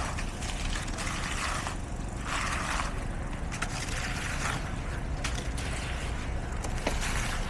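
Heavy construction machinery engine running steadily, with irregular scraping and a few sharp clicks over it.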